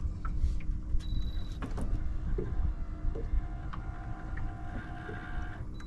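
A small electric motor whining steadily, with a higher whine joining for the last two seconds, over wind rumbling on the microphone.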